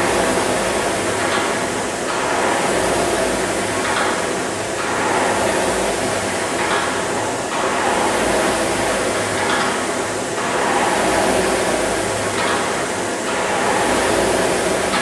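Indoor rowing ergometer's fan flywheel whirring, swelling with each drive and easing off on the recovery, about one stroke every three seconds, with a light click at each catch.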